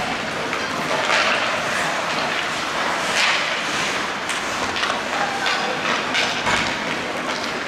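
Ice hockey skate blades scraping and carving on rink ice, a steady hiss broken by several sharper swishes as players push off and turn.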